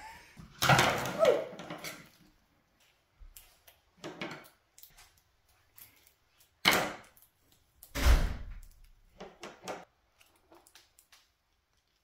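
Small plastic packets handled and cut open with scissors, with scattered knocks on a tabletop and one heavier thump about eight seconds in.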